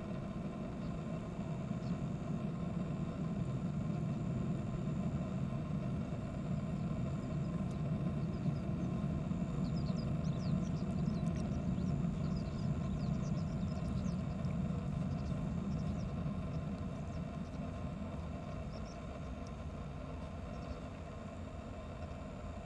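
Steady low mechanical rumble that swells through the middle and eases off near the end, with a few faint, short high chirps about halfway through.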